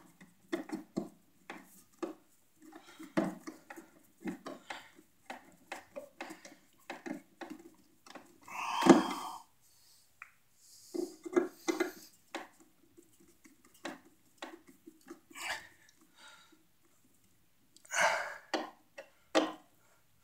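Screwdriver turning a duplex receptacle's mounting screws into its box: a run of small metallic clicks and rasping scrapes, with louder clattering knocks about nine seconds in and again near eighteen seconds.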